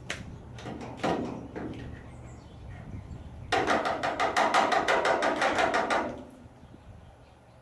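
Two single knocks, then a fast run of even knocks, about seven a second for some two and a half seconds, like rapid hammer taps.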